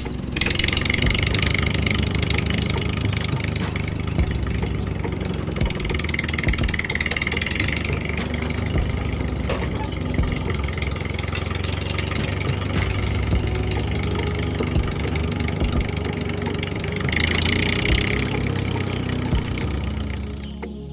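Small engine of a home-built mini tractor running steadily with a fast, even chugging, with a higher hiss coming in a few times.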